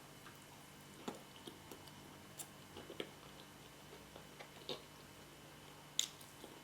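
Close-up chewing of soft yam cooked with spinach, heard as scattered faint smacking and clicking mouth noises, with a sharper click near the end.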